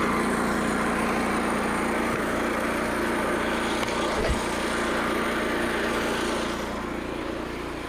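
Frontier OS27 portable band sawmill running steadily on its small gas engine, with a brief low thump about four seconds in; it gets a little quieter near the end.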